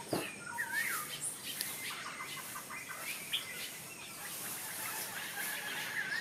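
Birds calling and chirping: short notes and whistled phrases that rise and fall, over a steady high hiss.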